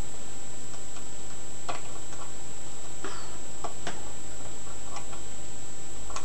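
Light, irregular metallic clicks and ticks of a lock pick working the pins of a five-pin euro cylinder, with a few quick clicks together about three seconds in. A steady faint high whine and hum run underneath.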